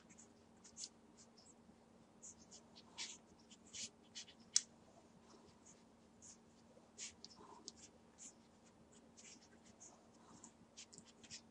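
Six-day-old Entlebucher Mountain Dog puppies suckling at their mother: faint, irregular little clicks and smacks, the sharpest about four and a half seconds in, over a faint steady hum.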